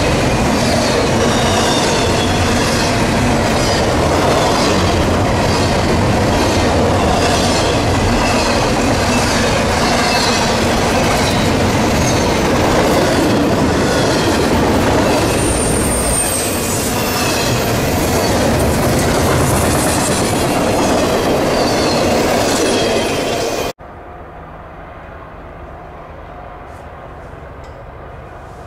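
CSX double-stack intermodal freight train rolling past: a steady rumble of the well cars with a rhythmic clicking of wheels over the rail joints and recurring high-pitched wheel squeal. About four-fifths of the way through, the train sound cuts off abruptly, leaving a much quieter faint background.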